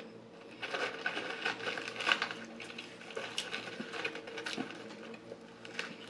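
Close-up eating sounds: fingers rummaging through McDonald's fries in a cardboard fry carton and dipping them in a plastic sauce cup, a quick run of small crinkly rustles and clicks, with chewing between them.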